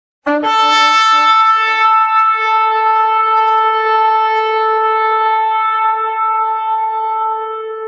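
One long trumpet blast. A brief lower note jumps up almost at once to a single held note, which sounds steadily and slowly fades over the last couple of seconds.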